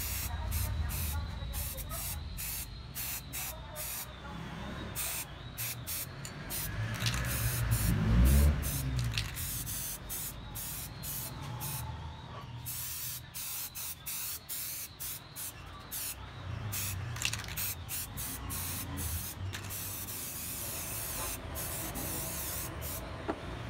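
Paint spraying in many short hissing bursts, with a low rumble underneath that swells about eight seconds in.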